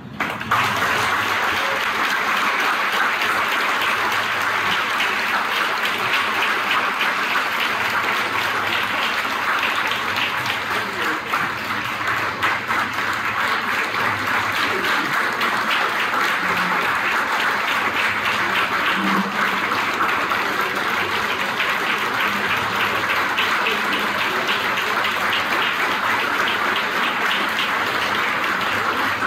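Audience applauding steadily, an ovation at the close of a keynote speech; the clapping breaks out suddenly at the start and holds at an even level.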